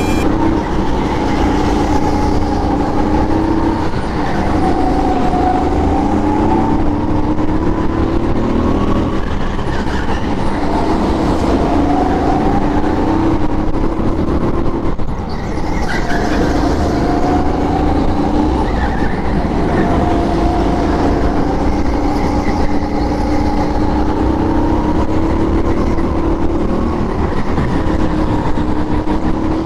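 Sodi rental go-kart's single-cylinder four-stroke engine, heard from on board at full throttle through a lap: the pitch rises on each straight and falls off into the corners, with a brief drop in level about halfway through where it slows hard.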